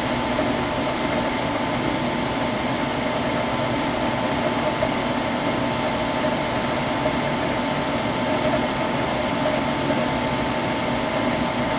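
Coleman 95% high-efficiency gas furnace running while it heats: the newly fitted inducer motor and the blower give a steady whir with a steady whine over it.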